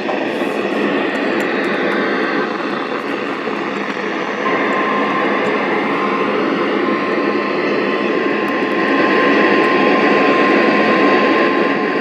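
Loud, steady static hiss from a weather radio receiver on a weak signal. The broadcast speech is drowned out, and a thin steady whistle tone comes in about halfway through.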